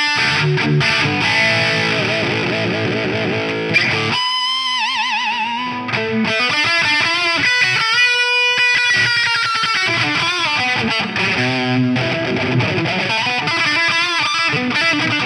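Distorted electric guitar played through a Mojotone British 800 (JCM800-style) tube amp kit: low riffing, then about four seconds in lead notes with wide vibrato and a held, bending note, before riffing resumes near the end.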